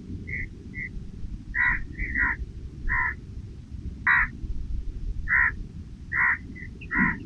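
An animal calling in a series of short, sharp calls, about nine at irregular intervals, over a steady low rumble.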